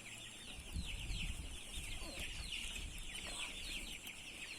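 A flock of chickens calling together, many short, high, falling calls overlapping without a break.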